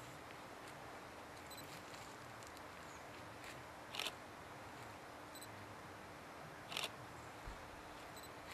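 Faint running noise of a tape camcorder, a steady low hum, with two brief rustling clicks about four and seven seconds in.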